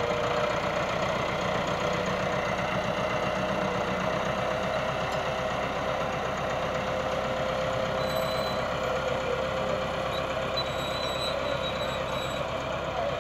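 Massey Ferguson 385 tractor's four-cylinder diesel engine running steadily under load while pulling a potato planter, with a steady whine over the engine note. It grows slightly fainter as the tractor moves off.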